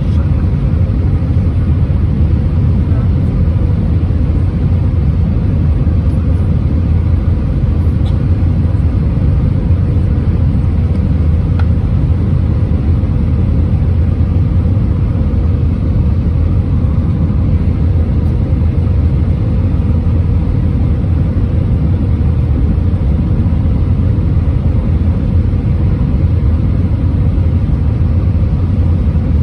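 Steady, loud low rumble inside the cabin of an Airbus A320-231 airliner: its IAE V2500 engines and airflow, unchanging throughout.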